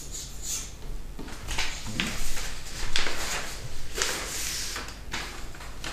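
Marker pen scratching on paper in a series of short strokes, then a sheet of paper rustling as it is lifted and bent about four seconds in.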